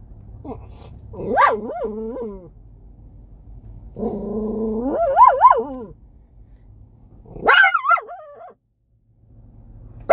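A dog barking and whining at a stranger it has taken against, in three outbursts: a short rising-and-falling bark about a second in, a longer wavering whine-bark around the middle, and a higher yelp near the end.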